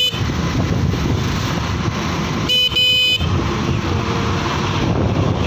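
Steady road traffic noise while riding, with a vehicle horn honking once, for under a second, about two and a half seconds in.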